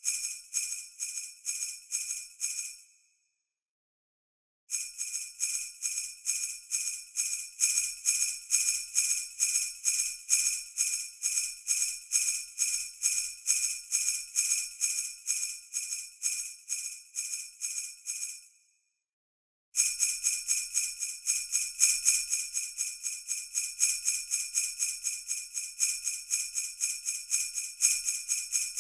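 Sleigh bells shaken in a steady rhythm, about two to three jingles a second. The ringing breaks off twice for a second or so.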